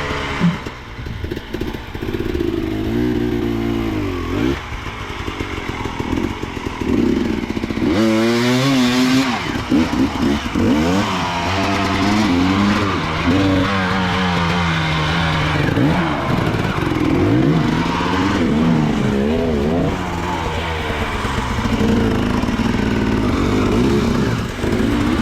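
Enduro dirt bike engine revving up and down over and over, the pitch rising and falling every second or two as the throttle is worked. A sharp knock sounds about half a second in.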